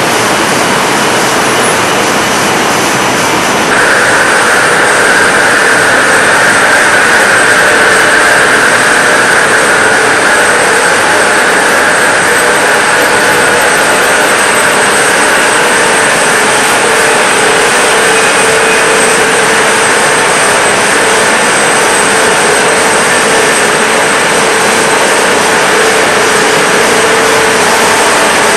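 Steady, loud noise of production-line machinery in a cathode-ray-tube factory, an even rush with a steady hum and whine. About four seconds in it steps up in loudness and a higher whine joins, then holds steady.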